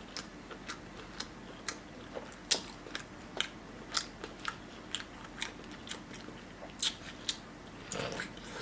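Close-miked chewing of food: wet mouth clicks and smacks, roughly two a second, with a short 'mm' hum near the end.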